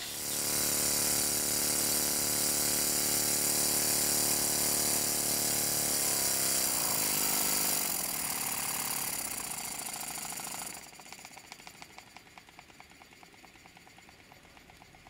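Small vertical single-cylinder model steam engine running fast: a loud steady hiss with a rapid chuffing beat whose pitch drops as the engine slows about six to eight seconds in. About eleven seconds in, the loud hiss stops abruptly, leaving a quieter, fast, even ticking.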